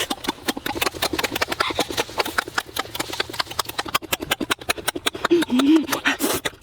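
Close-up chewing and lip-smacking: a quick, irregular run of mouth clicks, several a second.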